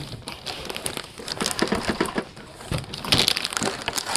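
Plastic wrap crinkling and cardboard scraping as a plastic-wrapped box is pulled up out of a cardboard carton: an uneven run of crackles and rustles.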